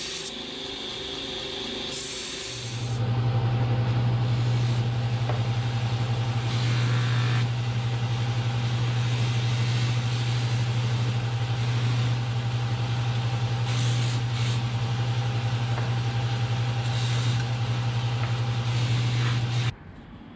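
A motor-driven machine running with a loud, steady low hum, starting about three seconds in and cutting off abruptly just before the end.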